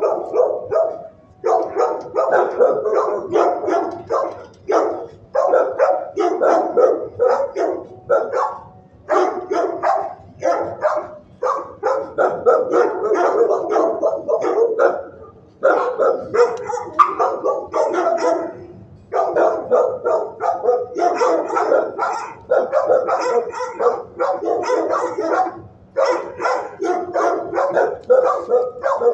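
Dog barking in a shelter kennel: long runs of rapid barks almost without pause, broken by short gaps every few seconds.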